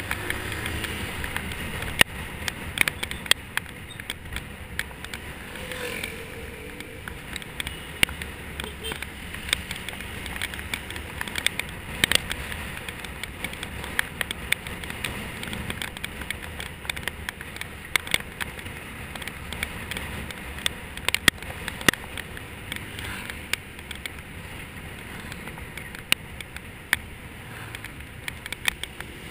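Motor scooter being ridden: a steady rumble of wind and engine on a handlebar-mounted camera, broken by frequent sharp clicks and knocks.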